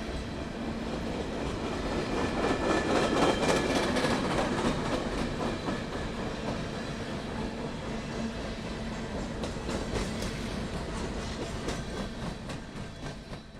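A train rolling past: a steady rumble of rail cars with wheels clicking over rail joints. It is loudest a few seconds in and drops off near the end.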